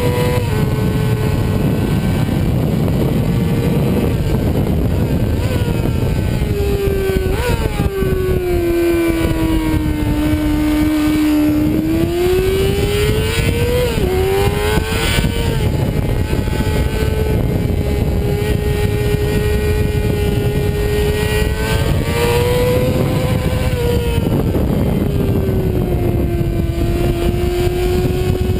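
Sport motorcycle engine at track speed, heard from the bike itself, with wind rushing past. Its pitch rises and falls as the rider accelerates and slows, with a sudden drop about fourteen seconds in.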